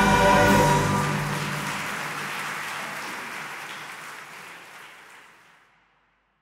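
Choir with accompaniment holding a final sustained chord that breaks off about half a second in, leaving a noisy wash that fades steadily to silence near the end.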